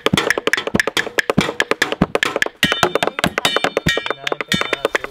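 Music built on fast percussive tapping and knocking. About halfway in, a high pitched melody joins it.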